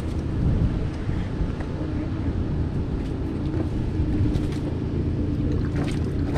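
An engine running steadily at idle, a low, even drone.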